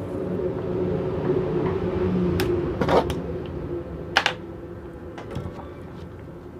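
A few sharp clicks and taps of small electronic parts, a microphone capsule and headset pieces, being handled, over a steady low hum.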